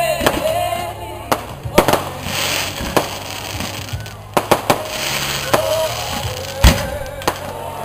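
Aerial fireworks shells bursting: a string of sharp bangs, three in quick succession around the middle and the loudest one late on, with a crackling hiss of sparks in between.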